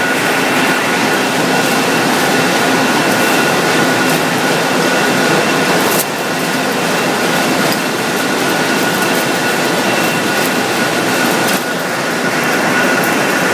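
Wire drawing machine running, its capstan drum turning and pulling steel wire through the die: a loud, steady mechanical din with a constant high whine.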